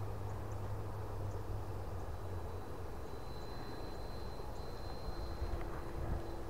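E-flite Viper 70mm electric ducted-fan RC jet in flight, its fan giving a thin high whine that grows stronger about halfway through and holds, over a steady low rumble.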